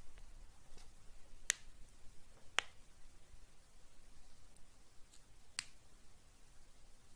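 Quiet room tone with a few sharp, isolated clicks at irregular intervals, three of them clearer than the rest.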